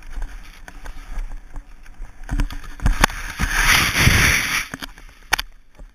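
Wind on a skier's camera and skis running on snow, then a crash: a few thumps a little after two seconds in, a loud rush of snow as the skier tumbles with the camera in the snow, lasting about a second and a half, and a sharp knock near the end.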